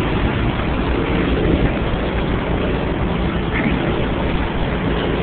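Steady rumble of vehicle engines and traffic, an even noisy drone with no distinct events.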